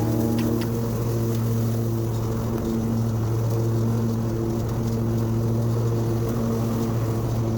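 Husqvarna lawn mower engine running steadily at mowing speed, a constant even hum.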